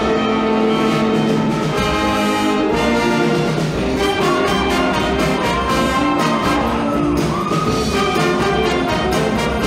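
Show choir's live band playing an upbeat instrumental passage, with the brass section carrying the melody over a steady drum beat.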